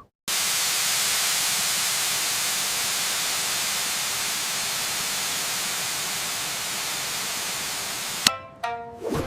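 A steady hiss, starting just after a short gap and running evenly until it cuts off with a click about a second before the end. Music begins right after.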